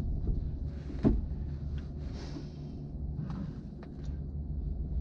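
Steady low hum with a single knock about a second in and a few faint clicks and rustles, like handling noises inside a cockpit.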